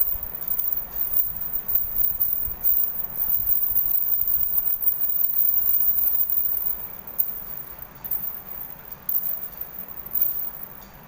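Payal anklets hung with small ghungroo bells jingling as they are handled and put on around the ankles, with knocks and rubbing from the handling. It gets quieter after about seven seconds.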